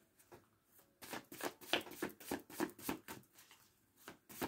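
A deck of tarot cards being shuffled by hand: a quick run of soft card slaps, about five a second, starting about a second in, with a short pause near the end before the shuffling resumes.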